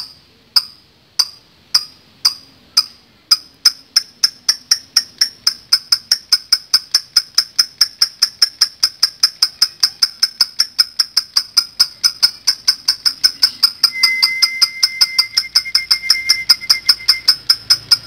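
Fischer's lovebird giving a long 'ngekek' chatter: sharp high chirps repeated evenly, starting at about two a second and speeding up within the first few seconds to a fast run of about five a second that keeps going.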